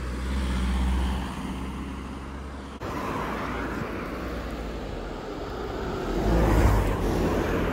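Road traffic: cars driving past, tyre and engine noise swelling to its loudest as one goes by about six to seven seconds in.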